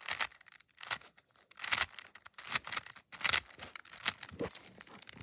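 3x3 Rubik's Cube being turned through an algorithm: a quick run of about a dozen short plastic clacks and scrapes as the faces are twisted one after another.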